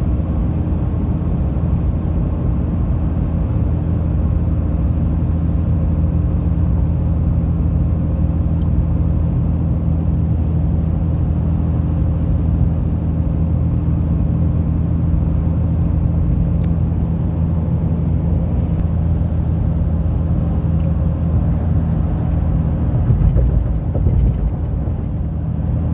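Steady engine and road noise of a car driving, heard from inside the cabin as a continuous low hum, with a brief swell near the end.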